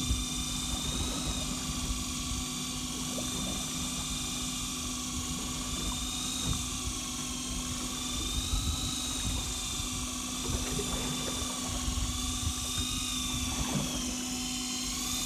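Daiwa electric fishing reel's motor whining steadily as it winds in line against a hooked fish, its pitch wavering a little with the load. A steady low hum runs underneath.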